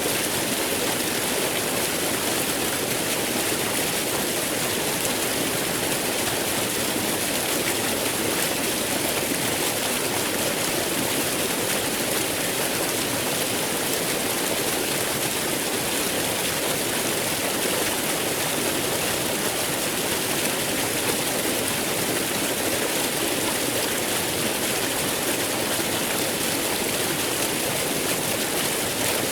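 Waterfall flowing: a steady, unbroken rush of falling water.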